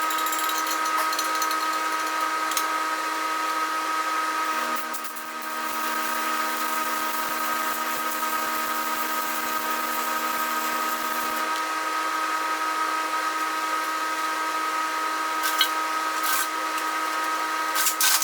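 Power grinder running at a steady pitch, grinding down built-up weld on a cast iron housing. A second, lower tone joins for several seconds in the middle, and there are a few sharp metallic clicks near the end.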